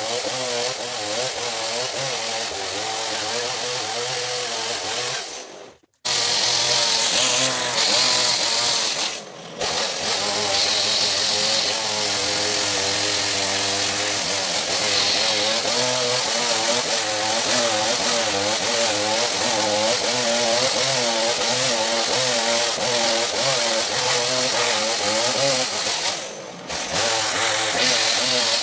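Two-stroke chainsaw cutting through cedar logs, its engine pitch wavering up and down under the load of the cut. The sound breaks off for a moment about six seconds in, with shorter dips later.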